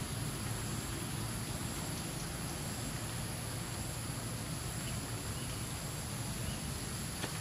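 Steady outdoor ambience: an even hiss with a faint high insect drone and a low steady rumble underneath.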